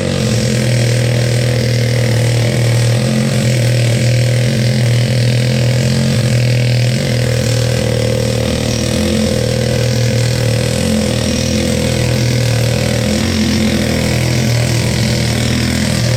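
An engine idling steadily with an even low hum, with no change in speed.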